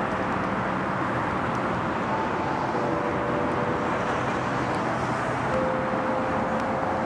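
Steady urban street ambience: traffic noise from passing road vehicles, with a faint held tone or two coming in partway through.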